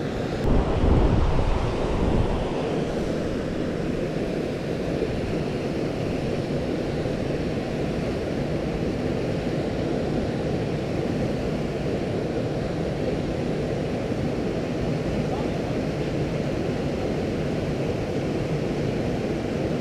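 Steady rush of a small waterfall spilling into a creek pool: an even, constant hiss of running water. A brief low rumble sits over it in the first couple of seconds.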